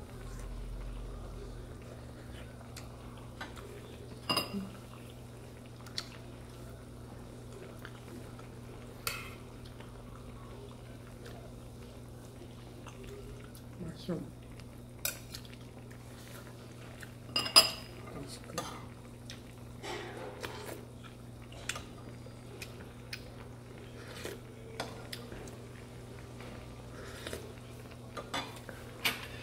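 Metal spoon and tongs clinking against ceramic bowls and an earthenware hot pot: scattered sharp clinks every few seconds, the loudest about 17 seconds in, over a steady low hum.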